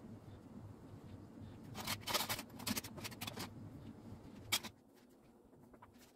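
Crayons and paper being handled on a table: a run of scratchy rustles and taps about two seconds in and a single sharp click a little later, over a low background hum that drops away soon after the click.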